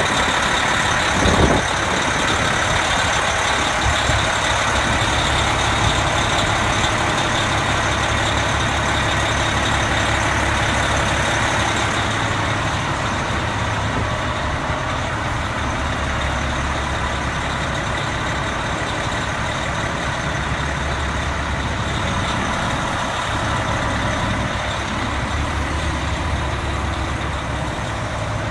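Spartan fire engine's diesel engine running steadily, with a brief knock about a second in.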